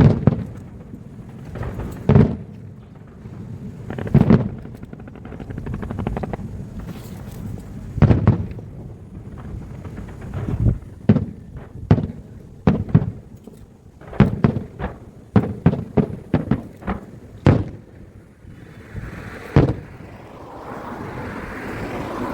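Aerial fireworks shells bursting one after another, sharp booms at irregular intervals that come faster about halfway through. Near the end the booms stop and a steady rushing noise takes over.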